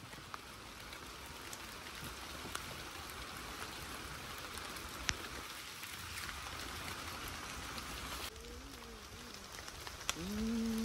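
Steady rain falling, an even hiss with the odd sharper drop. About a second before the end, a loud held pitched tone comes in.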